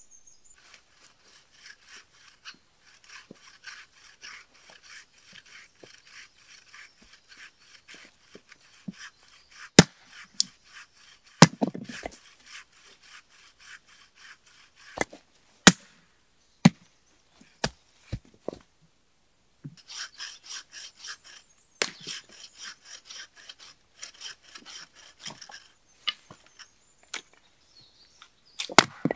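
Hand saw cutting wood in quick, even rasping strokes, in two spells. Between and after the spells come several sharp knocks of wood on wood, the loudest sounds.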